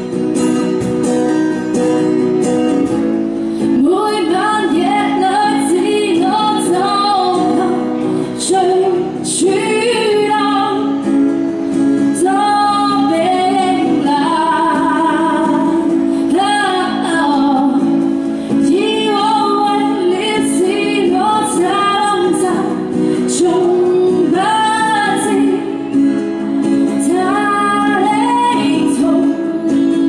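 Live acoustic guitar, joined about three seconds in by a woman singing a song in a pop style, with a cajón tapped along.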